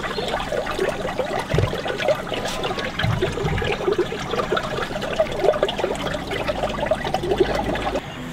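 Water trickling and splashing as it leaks out of a water-filled canvas chainsaw bag, through its zip, onto concrete.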